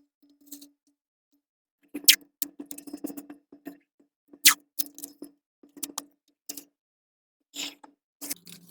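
Irregular sharp clicks and short scraping sounds from hand tools and metal hardware being handled while working on electrical outlet wiring. Two clicks about two and four and a half seconds in are the loudest.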